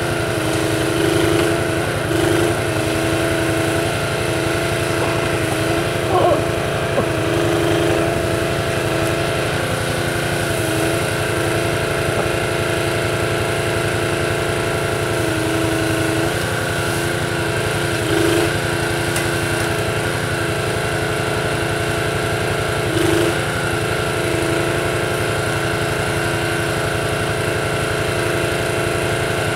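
Small engine on an ATV-mounted Jussi 400 hydraulic grapple crane running steadily while the crane works. Its note shifts briefly several times as the hydraulics take load.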